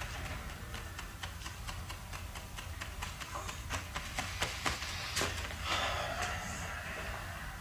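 Brown wrapping paper of a parcel rustling and crinkling as it is handled, with a run of light clicks and taps; a louder crinkle comes about six seconds in.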